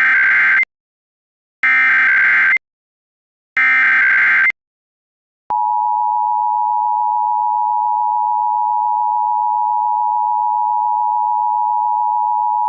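Emergency Alert System test signal: the SAME header's digital data burst, a buzzy electronic screech about a second long, sent three times with a second's pause between. About five and a half seconds in, a steady, loud attention tone begins and holds.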